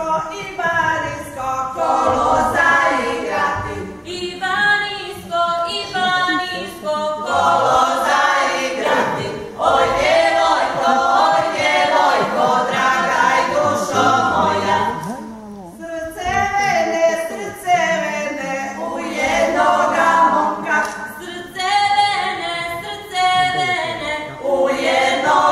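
Women's folk group singing a traditional Serbian song unaccompanied, in long phrases with brief breaths between them.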